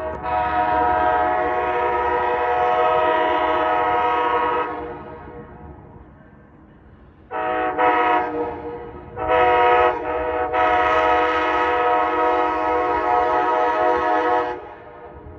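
Amtrak locomotive air horn sounding a multi-tone chord. It gives one long blast of about four and a half seconds, then after a pause a run of short blasts leading into a second long blast, over a low rumble underneath.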